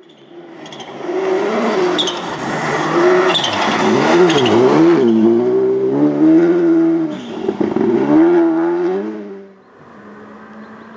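Rally car engine at high revs, its pitch rising and dropping again and again through gear changes and lifts. About nine and a half seconds in it falls away abruptly to a quieter, steadier engine sound from another rally car.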